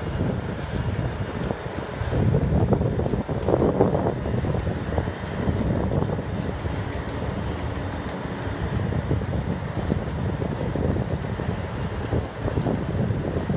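Bucket wheel excavator digging into the mine face: a heavy, steady mechanical rumble with continual clattering and knocking as the bucket wheel cuts and the earth falls. It swells louder about two seconds in for a couple of seconds, then settles.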